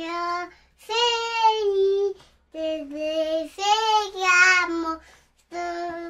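A child singing a melody in short phrases of held notes, with brief breaks between phrases.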